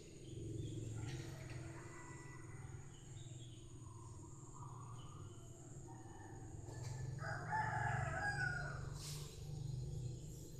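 A fowl calling, loudest about seven to eight and a half seconds in, over a steady low hum.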